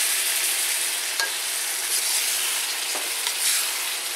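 Broccoli, onions and garlic sizzling in hot oil in a steel wok, stirred with a wok spatula that gives a few light clicks and scrapes against the pan.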